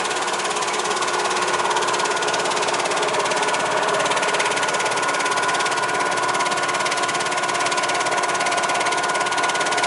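Industrial steak-slicing machine running as its chain conveyor feeds a log of beef to the blade: a loud, fast, even mechanical clatter with a steady high whine running through it.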